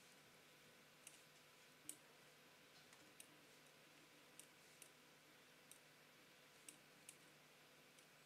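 Faint computer mouse clicks, about ten at irregular intervals with the loudest about two seconds in, over quiet room tone.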